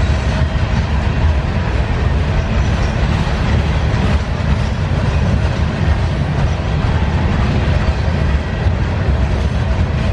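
Freight cars of a Union Pacific manifest train rolling past: a loud, steady rumble of steel wheels on rail.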